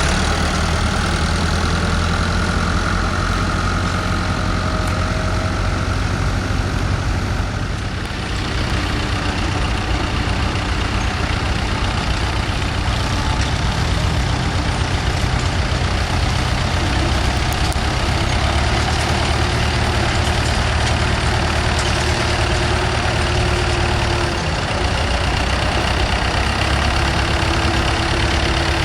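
Vintage tractor engines running steadily at low revs, a low even engine note that changes character about eight seconds in.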